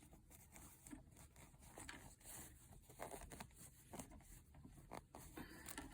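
Near silence with faint rustling and light ticks of a cloth face mask being handled.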